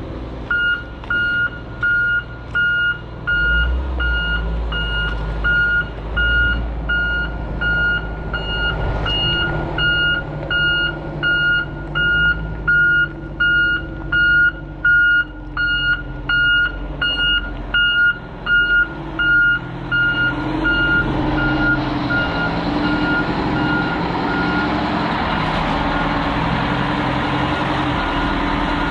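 Vehicle reversing alarm beeping in an even rhythm over a running engine. About twenty seconds in, the beeps grow fainter and the engine noise louder.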